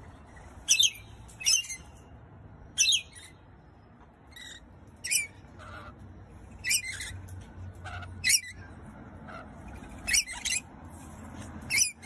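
Rainbow lorikeets giving short, high-pitched calls, about nine of them at uneven intervals, over a faint steady low rumble.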